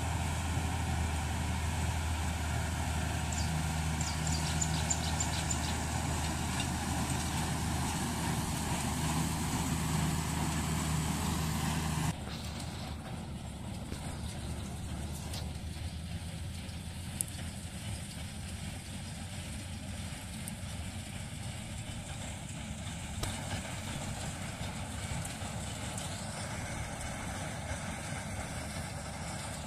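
Tractor diesel engine running steadily under load as it pulls a Welger AP 830 small square baler baling oats. About twelve seconds in the sound drops suddenly to a quieter, more distant running.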